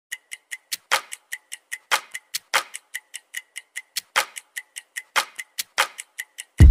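Background music opening with a steady, clock-like ticking beat, about five ticks a second with some ticks accented, and a deep kick drum coming in right at the end.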